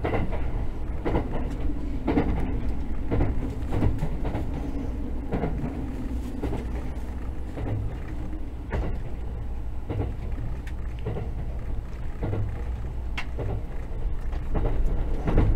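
Interior running noise of a JR 683 series electric limited express: a steady low rumble with irregular clicks and thuds of the wheels over rail joints as the train runs into a station. It grows louder near the end.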